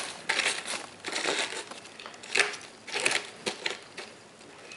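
Packing material being handled and pulled off a shipping box: paper and plastic wrapping crinkling and rustling in irregular bursts, quieter near the end.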